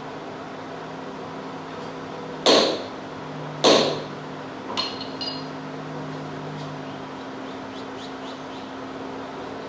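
Two loud knocks about a second apart, then two light metallic clinks with a short high ring, from metalworking on a coin ring, over a steady machine hum.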